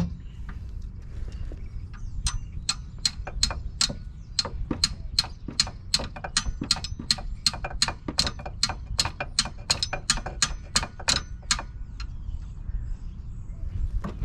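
Socket ratchet clicking in a steady run of about four clicks a second, starting about two seconds in and stopping shortly before the end, as a fastener is turned during an oil change.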